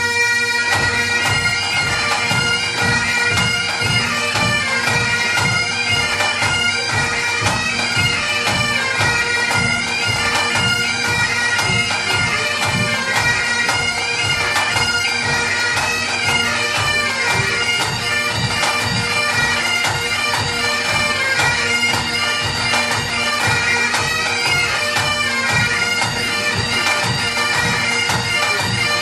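Bagpipes playing a Scottish tune: the steady drones sound under a fast, ornamented chanter melody that goes on without a break.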